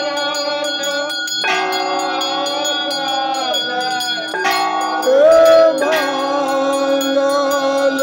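Temple bells ringing rapidly and continuously during a Hindu aarti, with fresh strikes about a second and a half in and again past four seconds, over devotional music.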